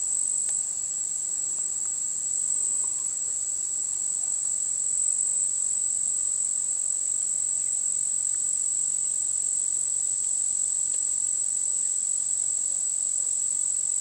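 Insects singing: a steady, unbroken high-pitched trill.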